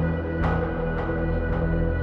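Soundtrack music: sustained low held tones with a percussive hit about twice a second.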